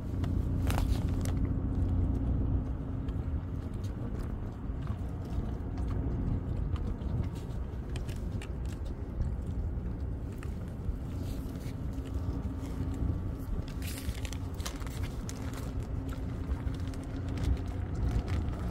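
A dog chewing and licking at a hand-fed treat, with a few sharp crunches and clicks, over a steady low rumble and faint hum.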